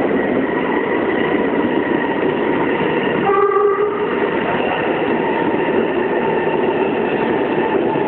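Sendai Subway Namboku Line train running through a tunnel: steady wheel and running noise with a faint high steady whine, and a short horn blast about three and a half seconds in.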